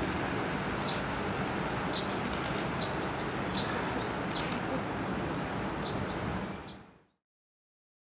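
Steady outdoor background noise with short, high bird chirps about once a second, fading out to silence about seven seconds in.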